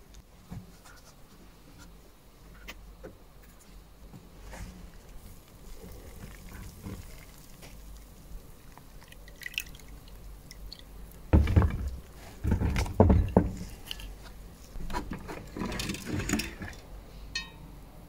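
Water splashing and dripping in an electrolysis rust-removal bath as the rust-crusted steel brake disc used as the sacrificial anode is lifted out of the brown electrolyte. The loudest splashes come about eleven to thirteen seconds in, with more around fifteen to sixteen seconds, after faint scattered crackling.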